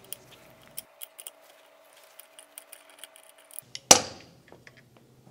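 Light, scattered metallic clicks as an oil pressure sender is spun out of an engine's crankcase by hand with a socket, then one sharp metal clink about four seconds in.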